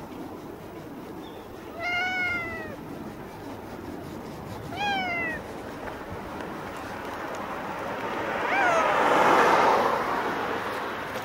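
Cat meowing three times: two rising-and-falling meows about three seconds apart, then a short one near the end. The last is partly covered by a louder swell of rustling noise.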